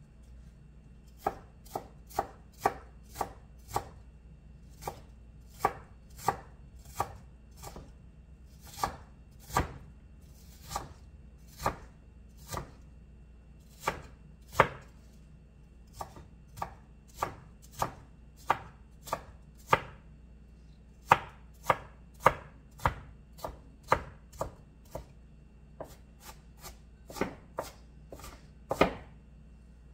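Large kitchen knife chopping onion on a wooden cutting board: sharp, irregular knocks of the blade against the wood, roughly one or two a second, with short pauses between runs.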